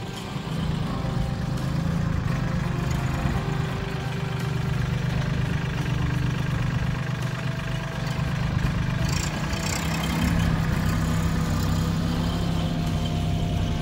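Mahindra compact tractor's diesel engine running steadily as it drives along and pushes dirt with its front loader bucket.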